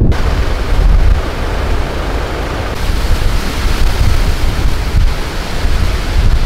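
Strong wind blowing, a loud, steady rushing hiss that rises and falls.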